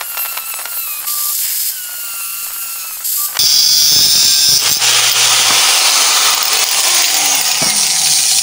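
Electric angle grinder with a cut-off disc cutting a metal door hinge in two: the disc runs with a high whine for the first few seconds, then about three and a half seconds in it bites fully into the steel and a loud, harsh grinding hiss takes over, throwing sparks.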